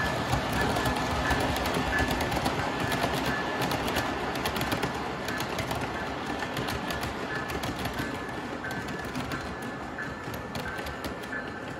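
O gauge model freight train rolling on three-rail tubular track: a steady rumble with rapid clicks of wheels over the rail joints, fading as the cars move away, with a high ding repeating throughout.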